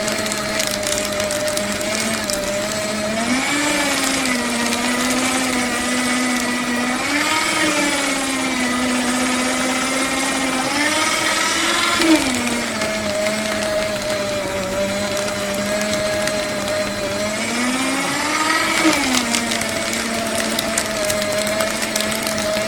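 Electric paper shredder running with a steady motor hum. For long stretches, from a few seconds in until about twelve seconds and again briefly near the end, the pitch shifts and a rustling, crunching noise of paper being cut joins in.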